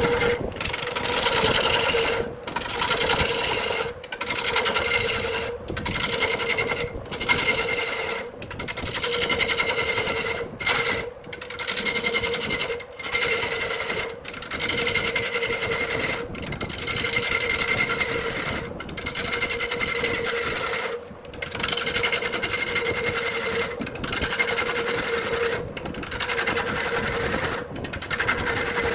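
Wood lathe turning a burl log: a steady motor hum, with the scraping of a cutting tool on the spinning wood. It breaks off abruptly every second or two and starts again.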